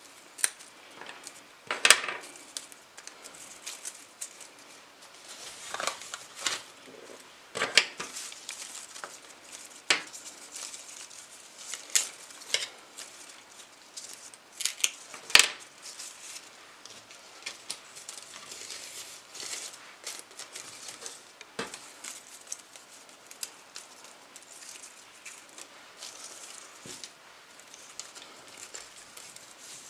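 Hand pruning shears snipping foliage stems: a series of sharp, irregular snips, the loudest about 2 and 15 seconds in, between soft rustling of leaves being handled.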